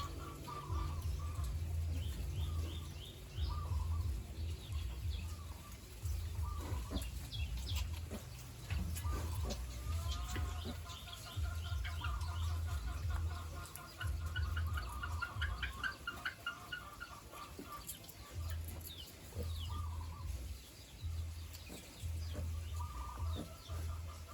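A nursing sow grunting low and rhythmically, about one grunt a second, the grunting that goes with suckling and milk let-down. Higher calls like hens clucking come and go over the grunts.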